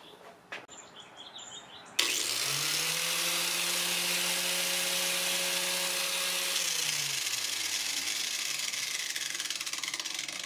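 Small 4-1/2-inch angle grinder with a diamond wheel, mounted as a homemade tungsten sharpener, switched on about two seconds in: it runs up to speed with a steady whine over a rushing hiss. A few seconds later it is switched off and its pitch falls as it spins down, the hiss fading last.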